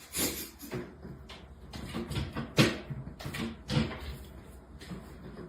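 A string of irregular knocks and bumps, about a dozen, the loudest about two and a half seconds in, over a low steady hum.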